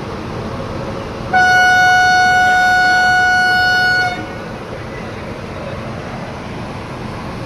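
Train horn sounding one long, steady blast of about three seconds, starting about a second in and cutting off, over a continuous background rumble.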